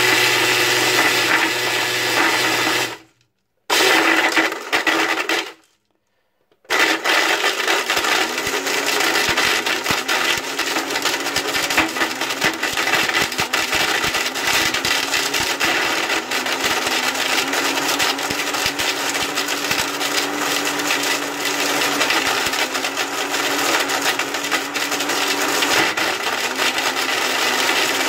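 Single-serve personal blender running with plastic ping pong balls rattling and clicking against the jar. The motor cuts out about three seconds in, runs for a moment, stops again for about a second, then runs steadily to the end.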